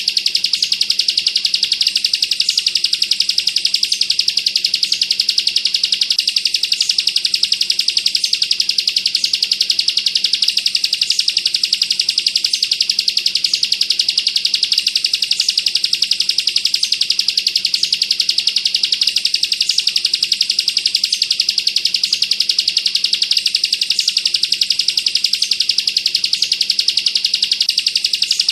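Bar-winged prinia (ciblek) singing a continuous, very fast, dense trill: the rapid 'bren' burst song used as a training recording for songbirds.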